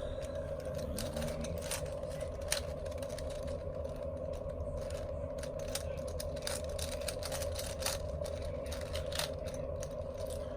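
4x4 Rubik's cube being twisted by hand, its plastic layers clicking and scraping in quick, irregular turns. A steady background hum runs underneath.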